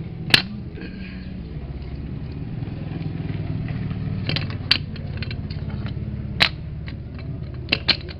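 Washing machine motor running with a steady low hum, with several sharp knocks over it.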